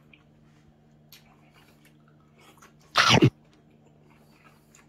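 Faint chewing and finger-and-bowl clicks as unripe green mango slices are dipped and eaten, broken about three seconds in by one short, loud burst of breath from the eater.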